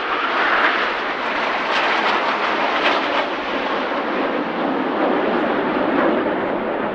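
Aermacchi MB-339 jet trainers with their single turbojets flying past, a loud continuous jet noise that slides lower in pitch through the second half as they pass and move away.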